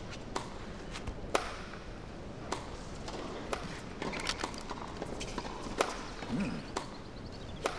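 Tennis ball being struck back and forth in a rally, a sharp pock roughly once a second, heard over a low, steady background.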